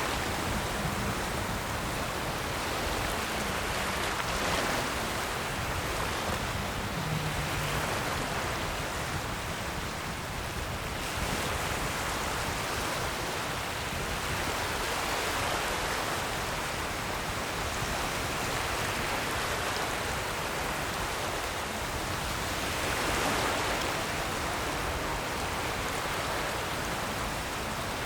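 Ocean waves washing on a shore in a steady rush, swelling gently every several seconds.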